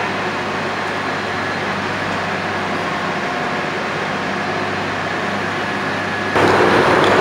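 Steady mechanical drone of heavy roadworks machinery, with a low engine hum under it. A little over six seconds in, the noise jumps suddenly louder and harsher.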